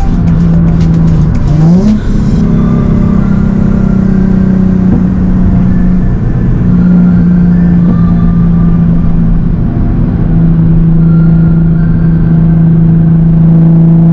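Nissan 350Z HR's VQ35HR V6 through a straight-piped Tomei exhaust, heard from inside the cabin. The engine note climbs quickly once, about a second and a half in, as the car accelerates. It then holds a steady drone at cruising revs.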